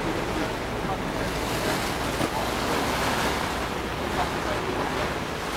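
Steady rush of water along the hull and wind of a boat under way, with wind buffeting the microphone.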